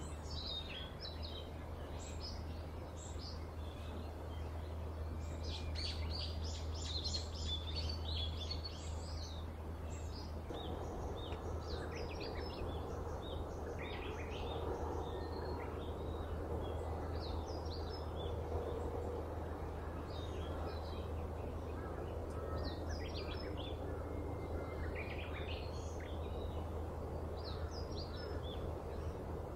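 Small birds chirping in short, repeated calls throughout, over a steady low rumble of outdoor background noise. The background noise thickens about ten seconds in.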